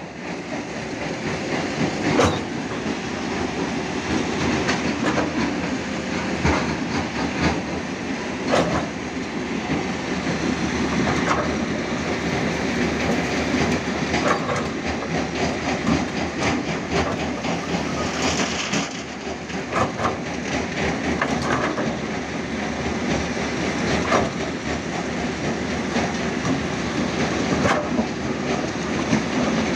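Hitachi Zaxis 210F hydraulic excavator running steadily under load as its bucket digs and scrapes soil, with irregular clanks and knocks from the bucket and boom linkage.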